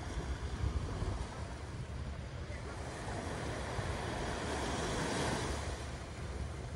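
Small waves breaking and washing up a sandy beach, the wash swelling to its loudest about five seconds in, with wind rumbling on the microphone.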